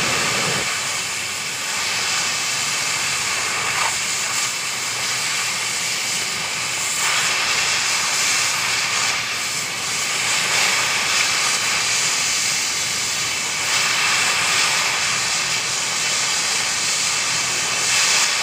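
Oxy-fuel cutting torch hissing as it burns through a seized steel track-shoe bolt on an excavator track. The rushing hiss is steady and swells and eases a few times.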